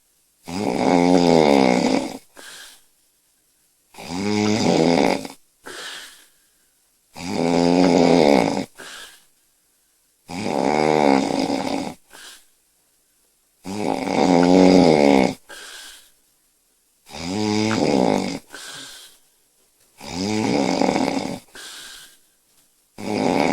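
A woman snoring loudly in her sleep. Each long, loud, buzzing snore is followed by a shorter, quieter breath sound, in a steady rhythm of about one snore every three seconds.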